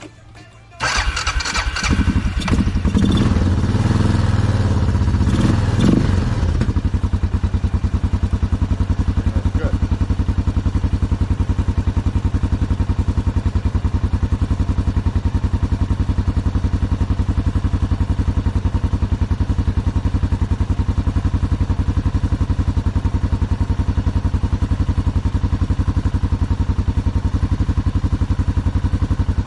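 Suzuki Quadrunner 500 ATV's single-cylinder four-stroke engine starting about a second in, its fuel valve set to prime. It runs loud and uneven for about six seconds, then settles into a steady, evenly pulsing idle.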